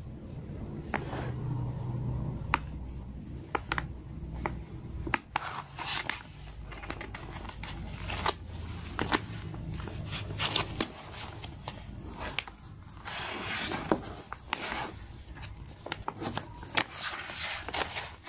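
Glossy plastic stand-up pouch crinkling and rustling as it is handled and turned over, with irregular sharp crackles.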